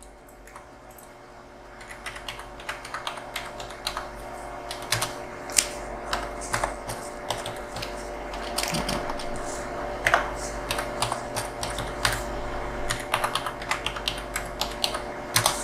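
Typing on a computer keyboard: a run of irregular key clicks that starts about two seconds in.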